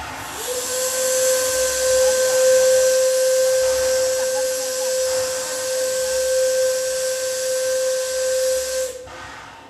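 Steam whistle of the Shay geared steam locomotive SL31 sounding one long blast of about eight seconds, a single steady pitch over loud hissing steam, cut off sharply near the end.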